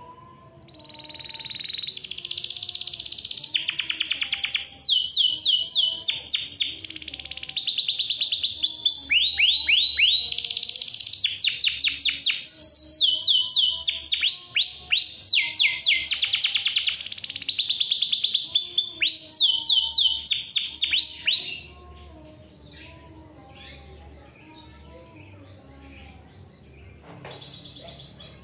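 Domestic canary singing a long, loud song of fast rolling trills and high whistled phrases, which stops abruptly about three-quarters of the way through, leaving only faint chirps, before singing starts again at the very end.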